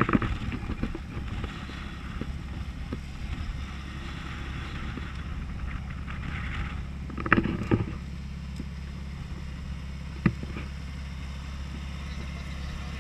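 Off-road race car engine idling steadily with a low drone. There is a short louder burst about seven seconds in and a sharp click about ten seconds in.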